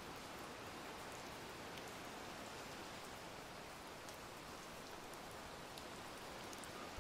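Faint steady outdoor hiss with a few faint high ticks, like light rain; no engine is heard.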